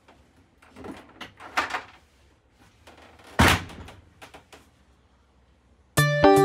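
Spring-bolt latches on a pop-up truck camper's fold-up wall knocking and clicking into their catches as the wall's corners are pressed: a few lighter knocks about a second in, one loud sharp knock about three and a half seconds in, then a couple of faint ticks. Music starts just before the end.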